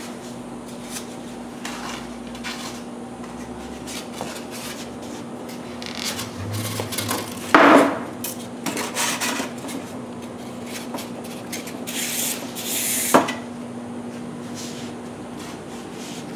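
Expanded-polystyrene foam buckets and spacer pieces being handled and slid onto a metal conduit pole: squeaky foam rubbing and scraping, a loud scrape about halfway through and a sharp knock near the end, over a steady low hum.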